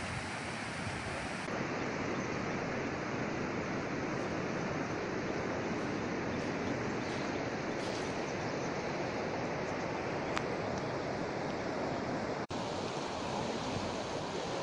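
Steady rushing noise of a swollen river in flood, with a brief break about twelve seconds in.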